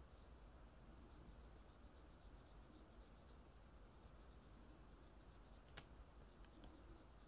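Faint scratching of a graphite pencil shading short strokes on paper, with one sharp click about six seconds in.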